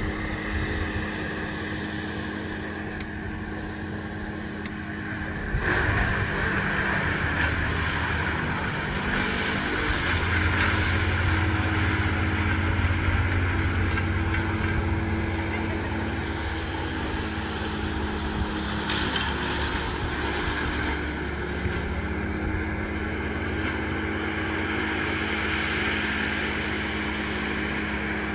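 A steady engine drone with a constant low hum under a rushing noise. It gets louder about six seconds in.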